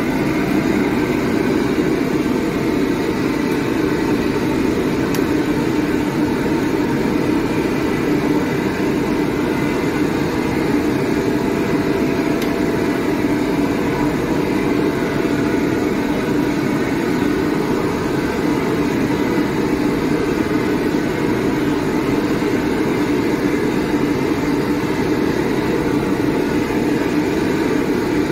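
Commercial wok stove's gas burner roaring steadily at high heat, with a few faint steady hums above the roar.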